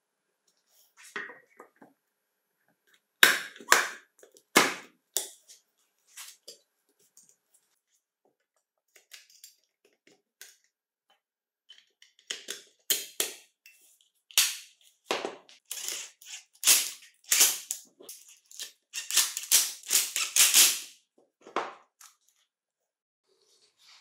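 A series of sharp clicks and snaps from hand work in a small room. A few loud ones come in the first five seconds, then a quiet stretch, then a busy run of rapid clicks through the second half, thickest shortly before the end.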